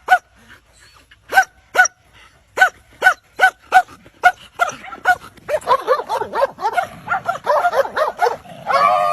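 A dog barking in short, high-pitched barks, about two to three a second. From about halfway through these give way to a denser, overlapping run of yelps and whines.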